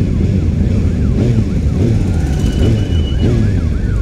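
An emergency vehicle siren sounding in fast, repeated rising-and-falling sweeps from about a second in, over the steady low rumble of a motorcycle ride.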